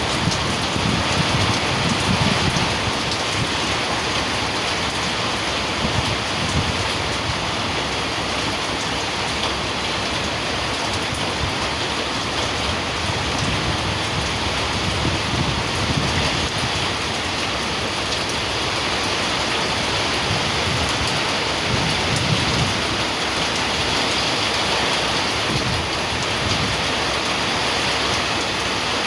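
Very heavy rain pouring down steadily, with low rumbles now and then underneath.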